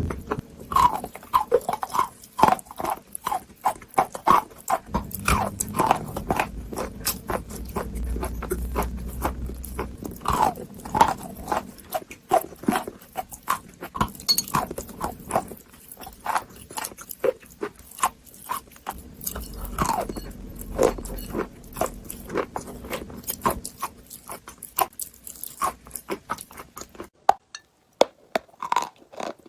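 Chalk being bitten and chewed, a dense run of crisp crunches and crackles that thins out to a few scattered crunches near the end.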